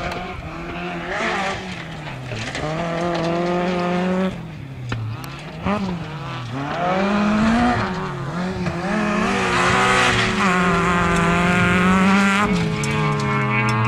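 Peugeot 206 rally car's engine revving hard on a dirt stage, its pitch climbing and dropping again and again with gear changes and lifts off the throttle. It gets louder in the second half as the car comes closer.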